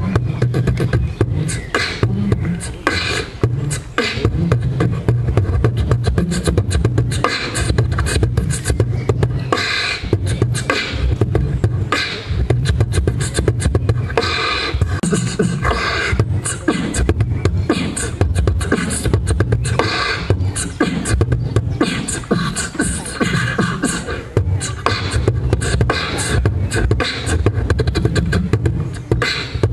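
Beatboxing into a handheld microphone, amplified: vocal percussion with deep pulsing bass hits under fast, sharp clicks and hisses in a continuous groove.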